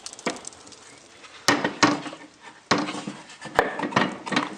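A handful of sharp metal knocks and clanks from the stove's cast iron firebox door and its latch being handled. The loudest come about a second and a half in and again near three seconds.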